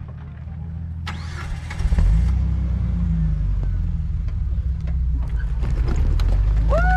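Jeep engine pulling at crawling speed up rocky ledges, its low rumble stepping up and getting louder about two seconds in and holding under load. Near the end a short whistle-like tone rises and falls.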